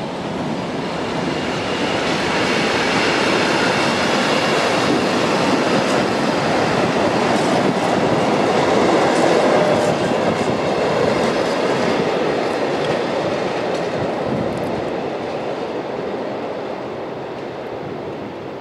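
Freight train of flat wagons rolling past, with a steady rumble and clatter of wheels on the rails. It is loudest about halfway through and fades as the train draws away.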